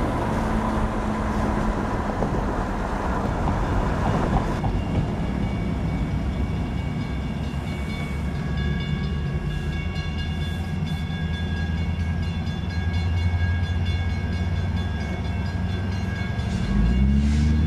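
Wind noise on the microphone from a moving car, then a Metrolink commuter train departing, heard from inside a car stopped at a grade crossing. From about halfway through, the crossing's warning bell rings steadily over the low rumble, and near the end a car engine begins to rev up.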